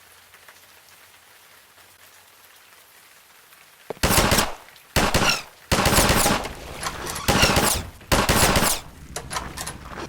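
Faint hiss, then about four seconds in a run of loud bursts of automatic gunfire, each under a second, with short gaps between them.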